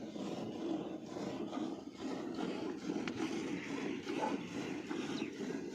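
Nili-Ravi buffalo being milked by hand: a steady run of milk streams squirting into a bucket that is already partly full.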